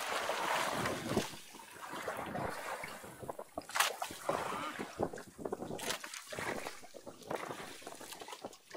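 Water lapping and splashing against a small fishing boat's hull, with wind on the microphone and scattered knocks and rustles as a landed grouper is handled. There is one sharp click about four seconds in.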